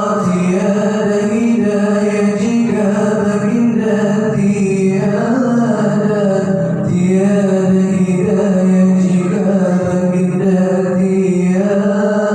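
A solo voice singing an Islamic sholawat through a microphone and sound system, in long held notes that bend slowly.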